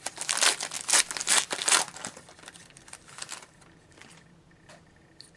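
Wrapper of a hockey trading card pack being torn open and crinkled. The crinkling is loudest in the first two seconds and trails off about three and a half seconds in, followed by a couple of faint clicks.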